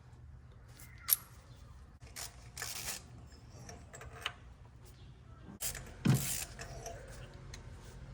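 Handling of spark plugs and tools under the hood: scattered small clicks and short scrapes of metal parts, with a sharp click about a second in and a louder thud and scrape a little after six seconds.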